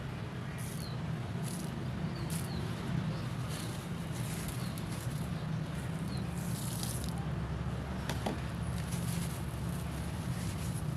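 Crumbly concrete being broken and dipped in water, giving short irregular crunches and crackles. Under them runs a steady low hum.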